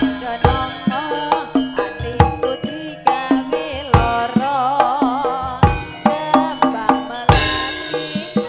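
Javanese gamelan playing: bronze metallophones ring a melody over sharp kendang hand-drum strokes, with a wavering melodic line in the middle. A sharp crash comes near the end.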